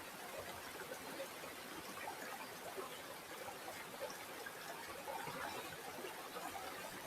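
Stream water flowing and trickling steadily, with many small splashes and gurgles.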